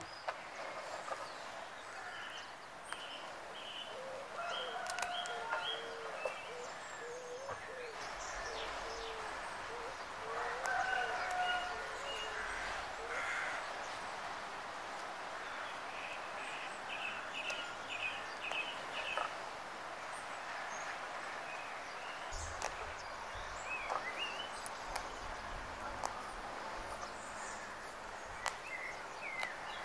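Birds calling: groups of quick, high chirps and runs of lower repeated notes, over a steady background hiss. Now and then a soft snap or rustle of herb stems is heard as leaves are picked off by hand.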